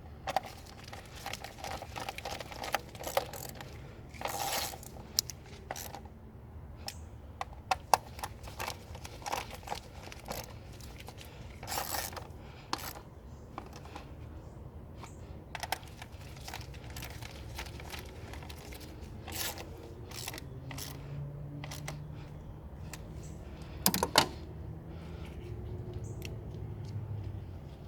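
Scattered clicks, clinks and scrapes of small metal objects being handled, over a steady low hum; the loudest knocks come about 8 seconds in and again near 24 seconds.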